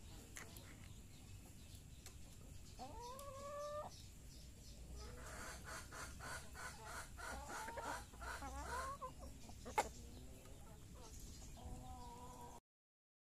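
Hens clucking and calling while they peck grain from a feed basin: one drawn-out call, then a run of shorter warbling calls over quick pecking taps. There is a single sharp click near ten seconds in, and the sound cuts out just before the end.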